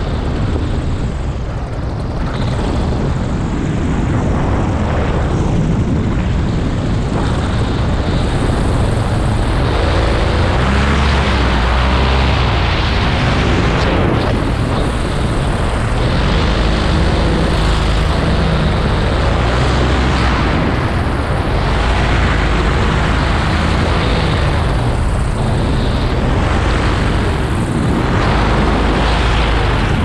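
Paramotor's two-stroke engine and propeller running continuously in flight, heard from the pilot's helmet with wind rushing over the microphone.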